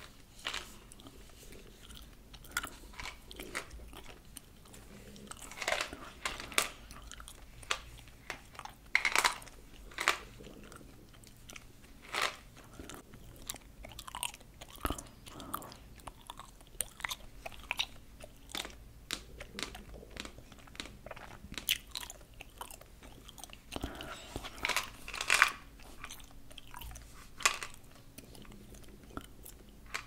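Close-up chewing of gum: irregular wet clicks, smacks and crunchy bites. Mixed in are fingernails tapping and clicking on a plastic gum bottle and its flip lid.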